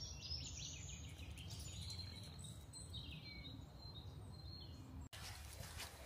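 Faint birdsong: high chirps and a few short descending whistles over a low, steady background rumble. It cuts off abruptly about five seconds in.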